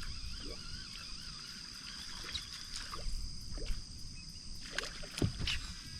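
Quiet open-air ambience with a faint wavering animal call over the first second or so, a steady high tone throughout, and a few light clicks near the end.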